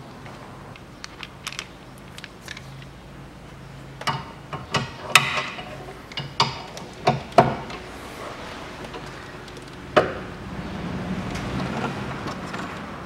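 A ratchet and socket clicking and clinking against the 17 mm central bolt of the front engine mount, irregular sharp metal knocks with a cluster of louder ones around the middle, then a longer stretch of ratcheting and scraping near the end.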